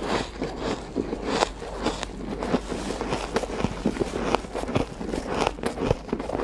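Ice being chewed close to the microphone: a rapid, irregular run of sharp crunches and crackles.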